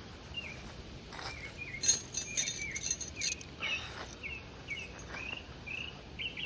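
Birds chirping: a steady run of short, curved, high chirp notes. A few sharp clicks or rustles come through as well, the loudest about two seconds in.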